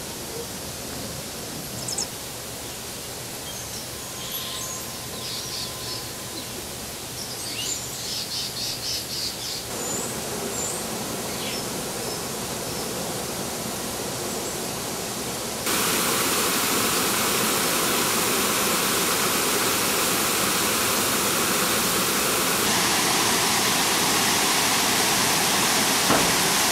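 Small birds chirping, with a short rapid trill, over a steady background hiss. About sixteen seconds in, a steady, louder rush of water takes over.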